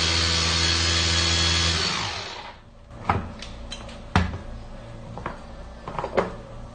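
Small press-top electric food chopper blending a milkshake, running with a steady motor hum that winds down about two seconds in as the top is released. A few sharp plastic clicks and knocks follow as the motor unit is lifted off and the bowl handled.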